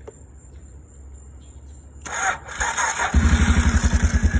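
Suzuki KingQuad 450 ATV's single-cylinder, fuel-injected engine being started: the starter cranks briefly about two seconds in, and the engine catches just after three seconds in. It then settles into a steady idle with an even, rapid pulse.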